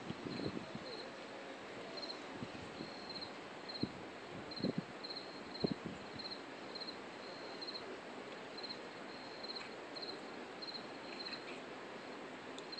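Night insects chirping steadily: a high, rhythmic chirp in short pulse groups about twice a second. A few soft, brief low knocks come in the first half.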